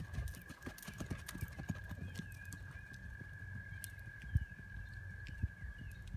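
Ridden pony's hooves thudding on sand arena footing in an irregular run of dull beats, with one louder thump about four seconds in.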